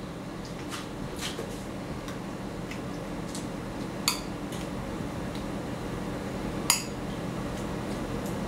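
Utensil clinking lightly against a small ceramic bowl while marinade is spooned over vegetable kabobs on a metal sheet pan. There are scattered soft clicks and two sharper clinks, about four and nearly seven seconds in, over a steady low hum.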